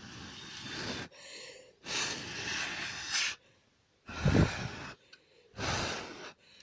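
A person blowing into a smoke alarm in about five separate puffs of breath, each lasting half a second to a second and a half, to clear dust from the sensor. The puff about four seconds in is the loudest and has a low rumble.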